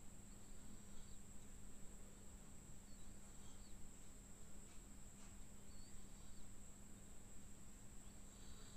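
Faint outdoor background: a steady high-pitched insect drone over a low steady hum, with a few faint short chirps.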